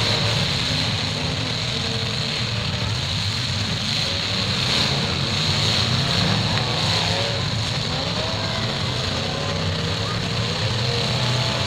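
Engines of several demolition derby cars running and revving together as they push and ram each other, with a constant din of crowd voices.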